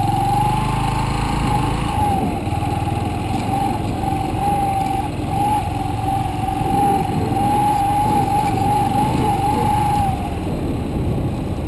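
Motorcycle engine running while riding along, with a steady whine that wavers slightly in pitch over it and fades out about ten seconds in.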